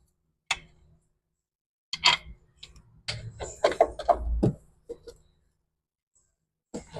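Sharp clicks and knocks from handling tools and suspension parts, coming in a few short clusters with a dense run in the middle and pauses between.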